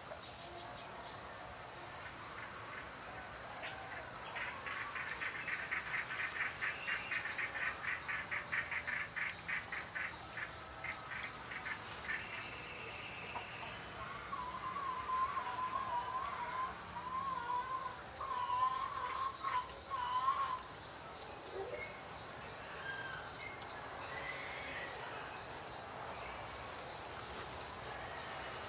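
Steady chorus of insects, a continuous high buzz at two pitches, the higher one pulsing evenly. Over it birds call: a run of short repeated notes from about four to twelve seconds in, then a wavering call that rises and falls in pitch from about fourteen to twenty seconds in.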